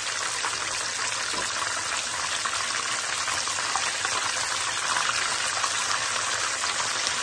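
Breaded cheddar and green-chilli bites deep-frying in hot oil: a steady, dense sizzle with fine crackling.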